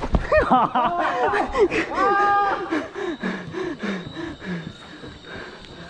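Excited shouting and whooping voices, one held shout about two seconds in, then a run of short laughing syllables falling in pitch.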